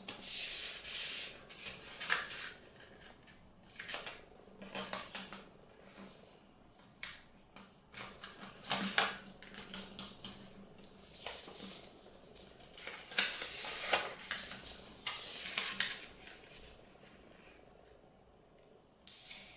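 A square of paper being folded and creased by hand on a wooden tabletop: irregular crisp rustles and scrapes as fingers press and run along the folds, quieter for a moment near the end.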